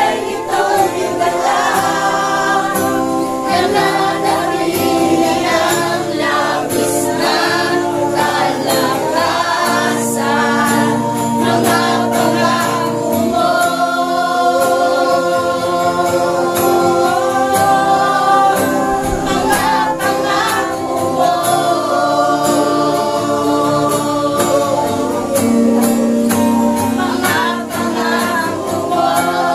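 Congregation singing a Tagalog worship chorus together over backing music.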